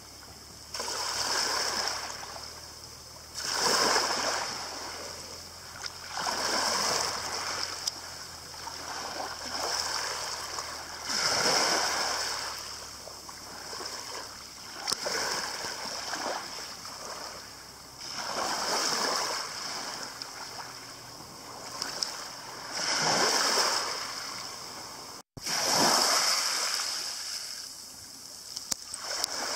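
Small waves breaking and washing over a pebble beach. Each wash swells and fades, about every three to four seconds.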